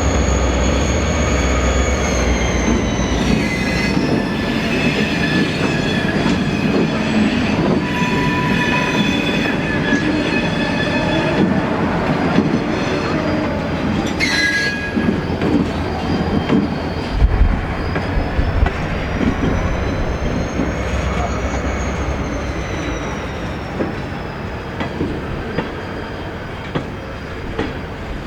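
Train rolling past on jointed track, its wheels squealing in several high tones that drift slowly up and down in pitch, with clicking over the rail joints. It fades gradually toward the end.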